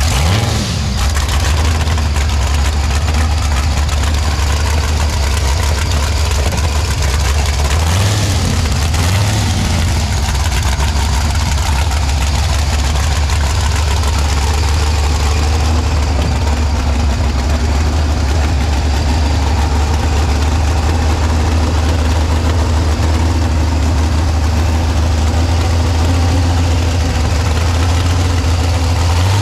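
Hand-built 20-liter supercharged gasoline V12 engine running at a loud, low idle, with a quick rise in pitch right at the start and two short rises about eight to nine seconds in.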